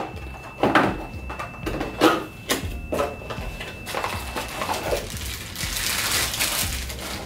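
Cardboard box being opened, its flaps giving several short taps and scrapes, then a plastic bag crinkling steadily for about two seconds near the end.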